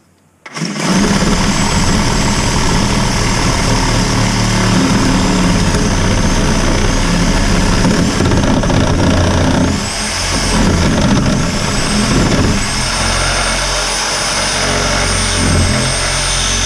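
A motor starts abruptly about half a second in and runs loudly and steadily, with a low hum and a high whine that wavers up and down in pitch.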